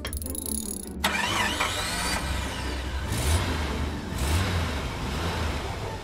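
A car engine starting abruptly about a second in, then running with several revving surges.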